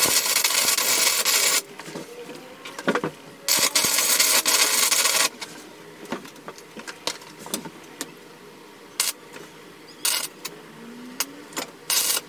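Stick (arc) welding of steel, with the arc crackling and sizzling. There are two runs of about two seconds each, then a few short bursts of arc near the end.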